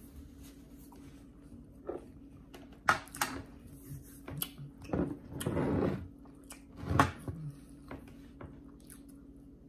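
Close-up eating sounds: chewing, with cutlery clicking and scraping on plates and toast in short separate strokes, the loudest about five and seven seconds in, over a steady low hum.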